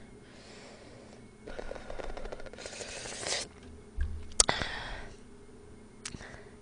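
Quiet eating sounds: soft chewing and breathing, then a sharp click a little past four seconds in as chopsticks pick noodles off a ceramic plate, with a smaller click near the end.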